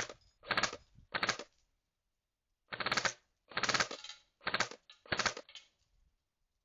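K2A airsoft rifle firing on full auto in short bursts of rapid clicking shots, about seven bursts with a pause of about a second after the first three.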